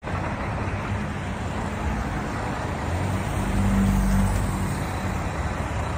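Road traffic: cars passing on a wet road, with tyre hiss and a low engine hum. One car passes close and gets a little louder about four seconds in.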